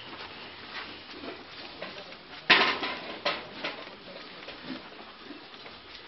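A loud clattering knock about two and a half seconds in, a second sharp knock under a second later, then a few fainter taps.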